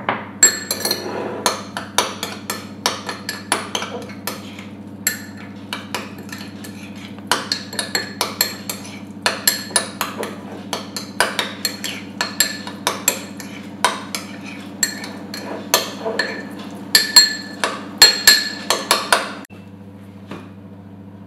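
Metal spoon clinking and scraping against a ceramic bowl while a sauce is stirred: a quick, irregular run of clinks, loudest near the end, which stops abruptly shortly before the end. A steady low hum lies underneath.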